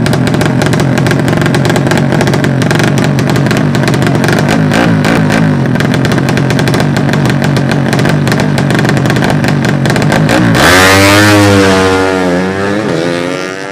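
200cc racing motorcycle engines revving hard, with a rapid, dense crackle for about ten seconds. About ten and a half seconds in, a louder engine note rises and falls in pitch several times, then fades near the end.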